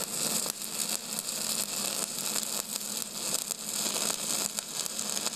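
Flux-core wire-feed welding arc crackling and sizzling steadily, with a low steady hum underneath.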